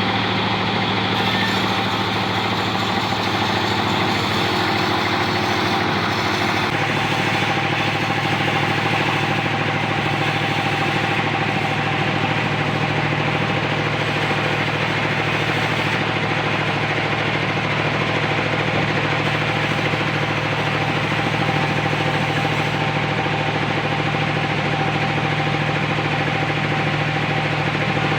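Sawmill engine running steadily under a dense hiss, its note dropping slightly about seven seconds in.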